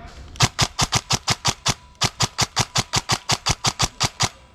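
Airsoft gun firing a rapid string of sharp shots, about six a second, in two runs with a short pause near the middle.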